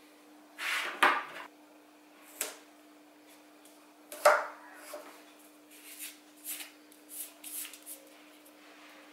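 Hands handling a small knife and blue painter's tape on a cutting mat: a few sharp clicks and knocks, the loudest a little past the middle, and rustling as the tape is pulled and wrapped around the blade, over a steady low hum.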